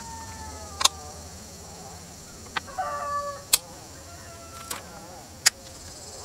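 Several sharp clicks, small strong magnets snapping onto the van's steel body through a fly net, over a steady high insect drone; a chicken clucks briefly about three seconds in.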